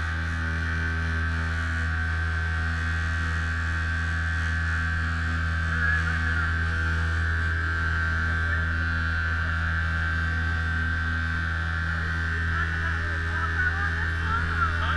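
Small boat's outboard motor running at a steady speed under way, a constant even hum.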